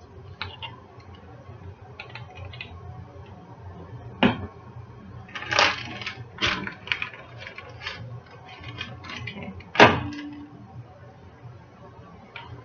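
Plastic zip-top freezer bag crinkling as it is handled and a metal measuring spoon clinking while spices are measured in: scattered small clicks and knocks, with a short burst of crinkling about six seconds in and one sharp knock near ten seconds in.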